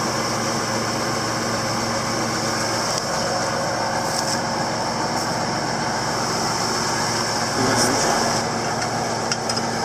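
Tractor engine idling steadily, with a brief metallic knock about eight seconds in.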